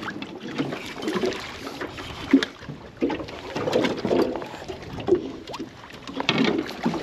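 Lake water sloshing and splashing against the hull of a small aluminum fishing boat, with scattered knocks and rustling from rod and landing-net handling as a fish is netted.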